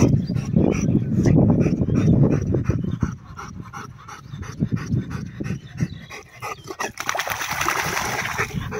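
Rottweiler panting hard and fast, tired out from swimming. Near the end comes a burst of splashing as it thrashes through the water.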